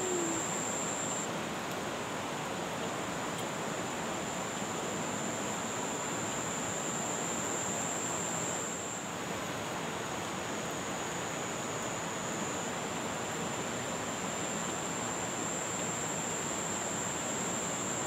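Steady rushing of a muddy river flowing past the bank, an even wash of water noise, with a thin high steady whine above it.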